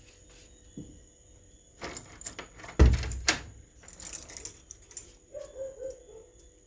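Keys jangling and a door lock rattling as a door is unlocked and opened, with one heavy thump a little before three seconds in.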